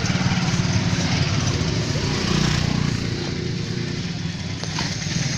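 Vehicle engine running steadily, its firing heard as a fast, even low pulse, with traffic noise around it.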